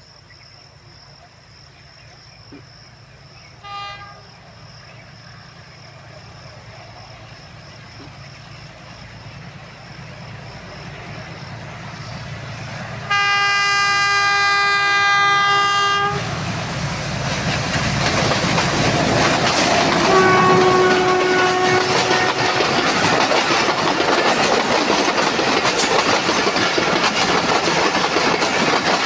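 Pakistan Railways HBU-20 diesel-electric locomotive sounding its horn as it approaches: a brief toot about four seconds in, a long blast of about three seconds near the middle, and a fainter, shorter one a few seconds later. The train's noise grows steadily, and in the second half passenger coaches go by close at hand with a loud rumble and clickety-clack of wheels on rail joints.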